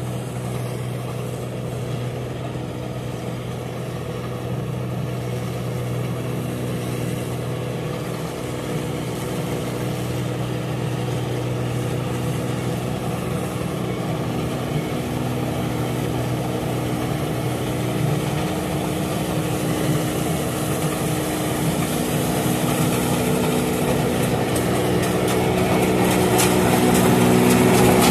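New Holland tracked combine harvester running steadily as it cuts rice, a constant engine and machinery hum that grows louder as the machine comes closer, with more rattle and hiss near the end.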